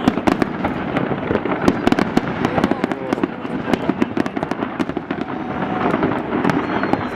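Large fireworks display: a rapid, dense barrage of bangs and crackles over a continuous rumble of explosions, with a crowd murmuring underneath.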